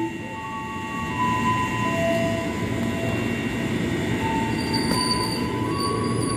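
Electric commuter train running into the platform: steady wheel and rail rumble with intermittent squealing tones, joined by a high thin wheel squeal from about four and a half seconds in.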